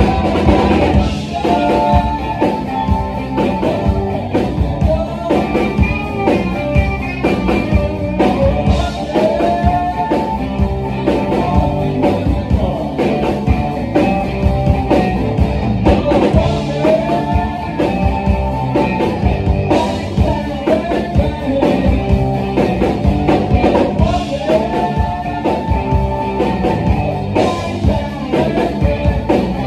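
A rock band playing live: guitars, bass guitar and drums, with pitched melody lines that bend up and down over a steady drum beat.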